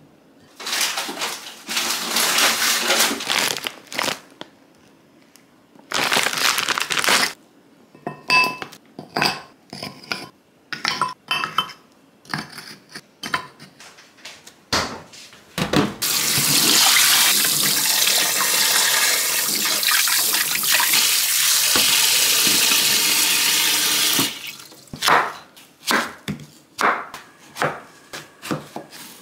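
Tap water running into a glass measuring jug in two short spells, then a run of clicks and clinks as frozen fish pieces are handled into the jug, then one long steady stream of water for about eight seconds. Near the end a chef's knife starts chopping daikon radish on a wooden cutting board, a bit more than one knock a second.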